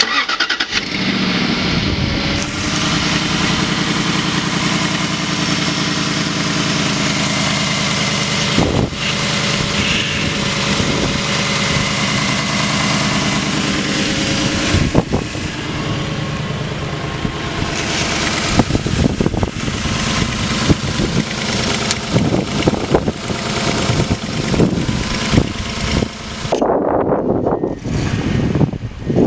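Jaguar XK8's 4.2-litre V8 starting and settling into a steady idle, getting more uneven in the second half.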